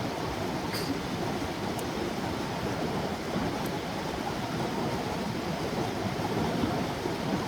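Steady rushing of flowing water, with a few faint sharp ticks.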